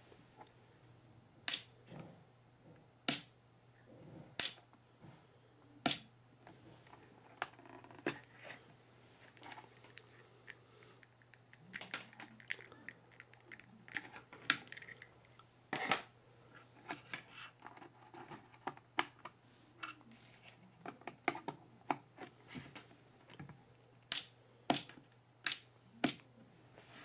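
Sharp clicks of model-railway turnout point motors snapping over and of the controller's push-buttons being pressed: four evenly spaced clicks, then a busy stretch of smaller clicks and rustling as the plug connectors and wires are handled, then four quick clicks near the end. A faint steady hum runs underneath.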